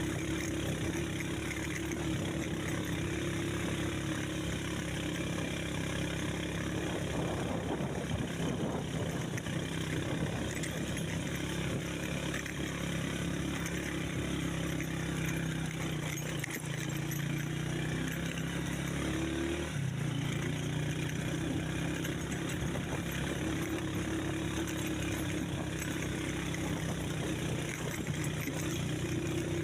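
A motor vehicle's engine running steadily. About two-thirds of the way through, its note rises briefly and then settles.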